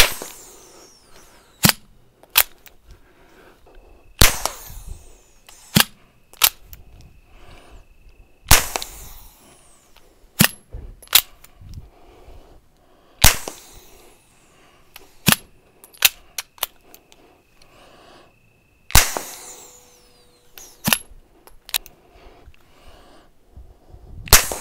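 B&T Station Six 9mm bolt-action pistol with its wipe suppressor, firing six suppressed shots about four to five seconds apart, each a short sharp report. Between shots come two smaller clicks as the bolt is opened and closed to chamber the next round. Fired with dry wipes and standard 115-grain ammunition, it is pretty quiet.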